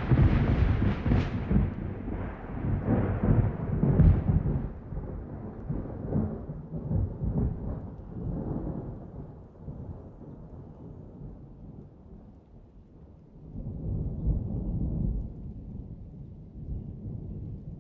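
A thunderclap breaking in suddenly with a sharp crackle, then a deep rolling rumble that slowly fades, with a second roll swelling up about three-quarters of the way through.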